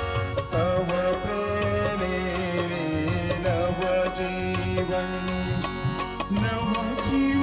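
Korg Pa1000 arranger keyboard playing a hymn: a wavering melody line over an Indian-style tabla and drum rhythm from the keyboard's accompaniment.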